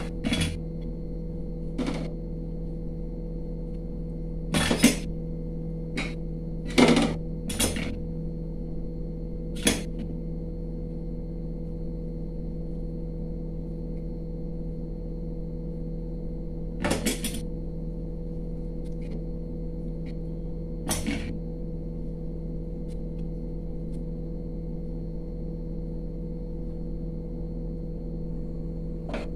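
Short knocks and clinks of stainless steel plates and bowls being handled, a cluster of them early and a couple more later, over a steady low hum.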